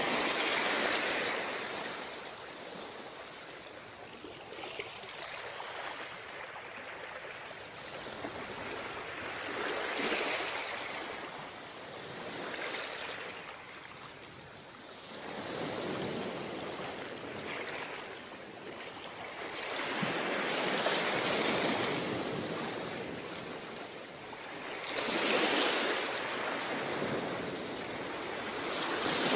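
Ocean surf breaking on a beach: waves roll in as swelling rushes of noise that rise and fall every four to six seconds.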